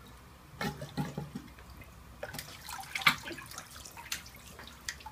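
Water sloshing and dripping in a filled bathroom sink in irregular splashes as a face wearing a snorkel mask is lifted out of it.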